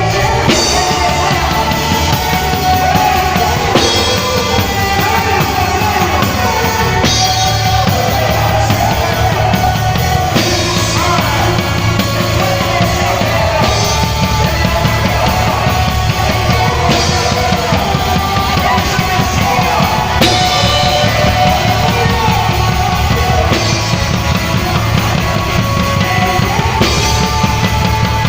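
A band playing loud, driving rock-style music with a drum kit to the fore and singing over it.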